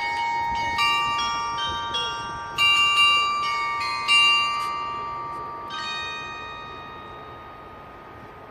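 Carillon bells playing a melody: a quick run of struck notes, each ringing on, with the last strike about six seconds in left to ring and fade.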